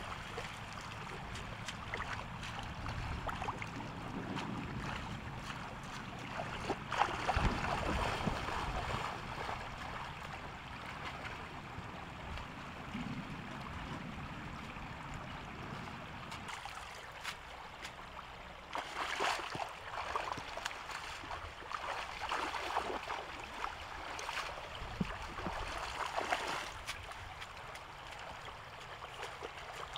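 Shallow floodwater flowing steadily, with splashing as a man wades and gropes with his hands in it. The splashing is heaviest about seven seconds in and again in the second half.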